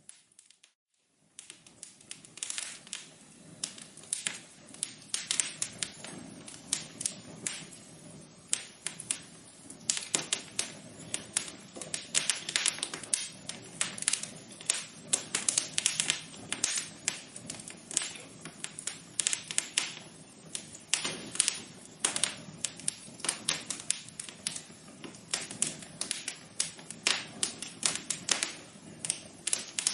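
Wood fire crackling: a dense, irregular run of sharp pops and snaps over a soft steady hiss. The sound cuts out briefly at the start and comes back about a second in.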